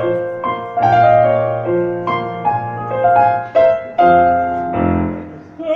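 Slow piano introduction to a song: chords and melody notes struck roughly once a second and left to ring out.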